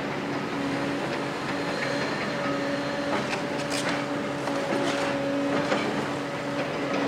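Doosan DX255LC-5 excavator's six-cylinder diesel running with a steady hydraulic whine as its grab digs into a pile of demolition rubble. Several sharp clinks and scrapes of broken rubble come about halfway through.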